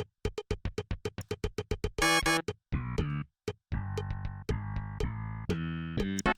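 Electronic synthesizer music: a quick run of short clicky hits, about seven a second, for the first two seconds, then a series of held synth chords.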